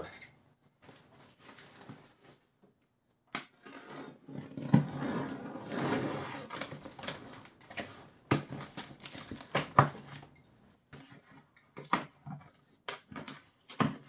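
A utility knife cuts along the packing tape on a cardboard box. There is a scratchy stretch of cutting and scraping a few seconds in, with sharp clicks and taps on the cardboard before and after it.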